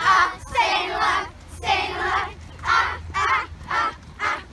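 Young girls' voices singing loudly in short, high-pitched phrases that waver in pitch.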